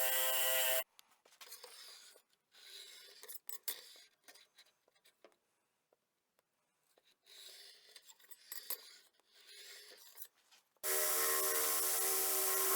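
Belt grinder running steadily, cut off abruptly about a second in. Then faint, intermittent rubbing and scraping with small clicks, until the grinder starts again abruptly near the end.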